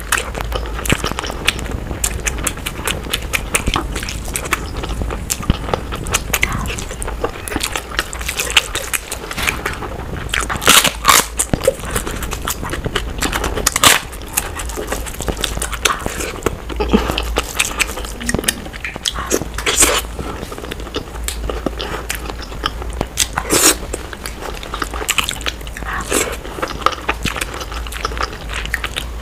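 Close-miked eating: steady chewing and mouth noises as egg masala curry and rice are eaten by hand, broken by several loud crunching bites into crisp papad.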